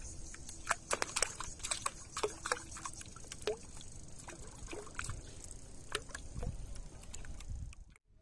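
Water sloshing and splashing irregularly around a floating plastic bottle fish trap as it bobs and tips over: a fish on the hook is tugging the bottle.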